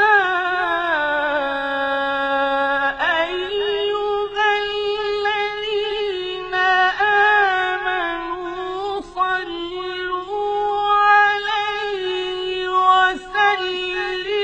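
A solo voice singing long, drawn-out melodic notes with a wavering pitch.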